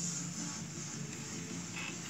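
Background music playing steadily, with a brief rustle near the end.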